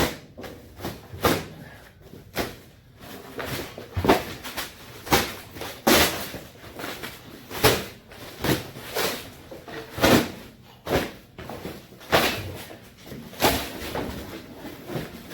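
Irregular knocks and clatters, about one a second, with some rustling, as parts and packaging of a gas caddy are handled and set down on a floor.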